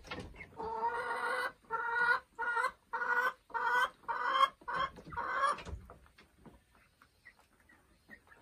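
Brown chicken calling in a run of about eight or nine loud, repeated clucks over some five seconds, then only faint scratching in the coop.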